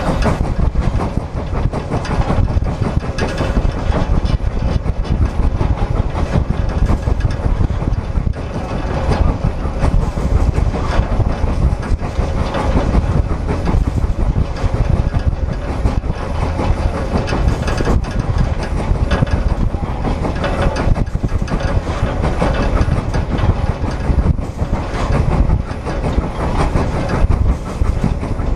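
Frisco 1630, a 2-10-0 Decapod steam locomotive, working under load on a heavy freight train, heard close up from its tender: a loud, steady, low running noise from the engine and its wheels on the rails, full of small irregular knocks.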